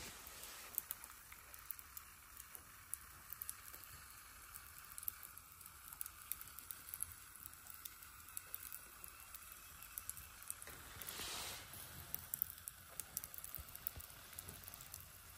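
Faint crackling and popping of glowing charcoal embers under a whole wild boar roasting on a wooden spit, with fat sizzling on the coals over a soft steady hiss. A brief rush of noise swells and fades about eleven seconds in.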